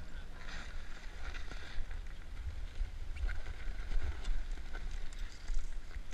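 Wind rumbling on a GoPro's microphone, with short scrapes of a snowboard and boots shifting on packed snow and a few small clicks.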